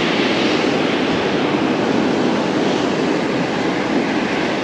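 Ocean surf breaking on a sandy beach, a steady wash of noise.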